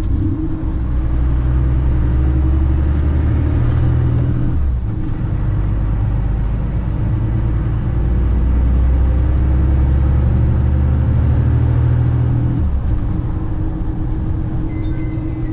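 Volvo FM 340 truck's diesel engine pulling under load, heard from inside the cab. It is a steady low drone that drops out briefly about four and a half seconds in and again near twelve and a half seconds, as the truck shifts gear.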